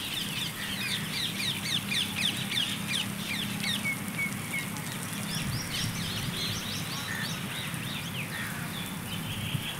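Small birds chirping in rapid runs of short, high, downward-sweeping notes, with a steady low drone underneath.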